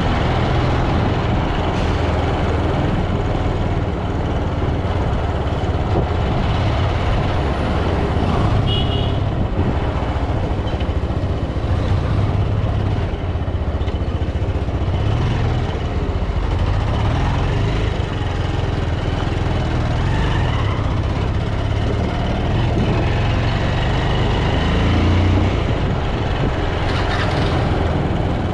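Bajaj Pulsar 200's single-cylinder engine running steadily as the motorcycle rides through city traffic. A brief high double beep sounds about nine seconds in.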